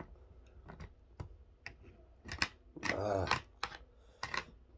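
Metal chopsticks clicking and tapping against a plastic food tray as food is picked up: a scatter of light, irregular clicks. A short hum of voice comes a little past the middle.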